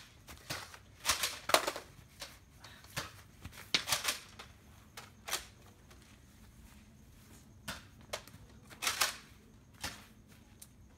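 Spring-powered Nerf blasters (a Retaliator and a Recon) clicking and popping as they are primed and fired, with darts landing. The sharp clicks come at irregular intervals, some in quick pairs.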